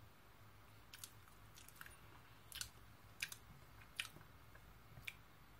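Faint chewing of a soft custard-cream-filled bread: about half a dozen small mouth clicks over quiet room tone.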